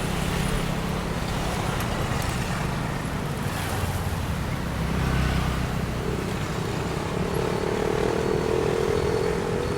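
Road traffic: a steady mix of passing vehicle engines and tyre noise, with one engine note growing more prominent from about seven seconds in.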